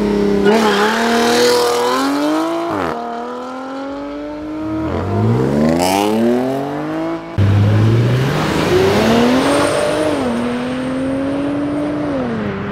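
Cars, Audi sedans among them, accelerating hard away with engines revving high. There are three separate pulls, each a rising engine note broken by drops at the gear changes. The last one levels off and falls away near the end.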